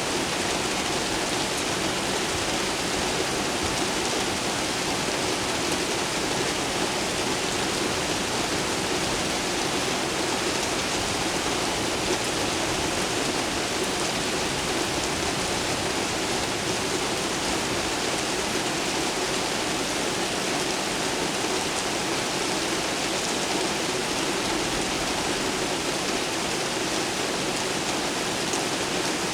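Steady rain falling during a thunderstorm, an even, unbroken hiss.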